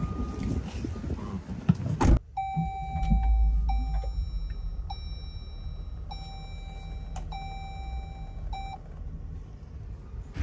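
A car door shuts with a single thud about two seconds in, and the outside noise drops to a quieter cabin hum. Then the Jeep Grand Cherokee L's electronic warning chimes sound as a string of same-pitched beeps, some long and some short.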